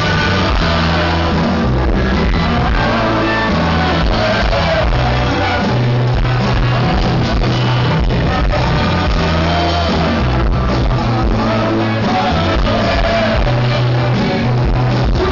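Live rock band playing loud with a lead singer.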